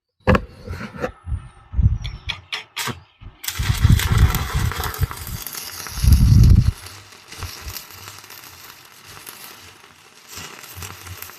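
Stick (arc) welding with a 1/8-inch 6013 electrode: a few short pops and sputters as the arc is struck, then a steady crackling, frying hiss from about three and a half seconds in as the bead is run.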